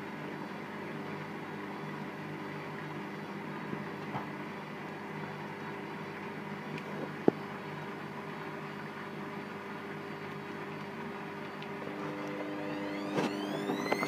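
Hotpoint WML560 front-loading washing machine in its spin after the wash: the drum motor runs with a steady hum, with a single knock about seven seconds in. Near the end a whine rises in pitch as the drum speeds up.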